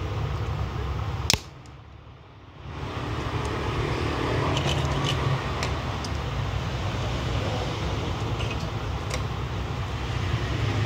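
Steady low rumble of background machinery or traffic. A sharp click about a second in is followed by a brief drop in the rumble. Light scattered clicks of small metal binder clips being handled on a clamped acrylic amulet frame come through it.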